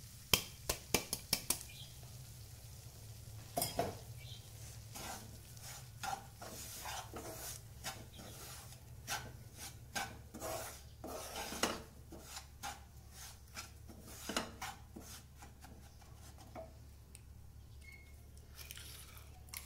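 Wooden spatula stirring and scraping coarsely ground moong dal around a nonstick pan as it roasts in ghee and semolina, in a run of short strokes that thin out near the end, over a faint sizzle of ghee. At the start a steel bowl knocks several times against the pan as the dal is emptied in.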